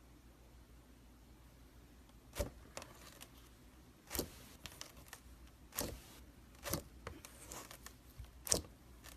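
Slime being handled, with a string of sharp crackling pops and squelches that come every second or so after a quiet start.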